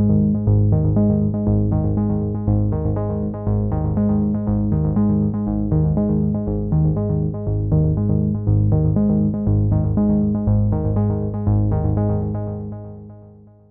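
Background music with a steady rhythm of repeated notes, fading out near the end.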